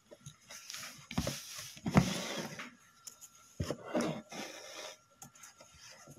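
Embroidery thread being drawn through cloth and rubbing over the fabric as a mirror is stitched down: three rasping, rustling pulls, the loudest about two seconds in, starting with a knock.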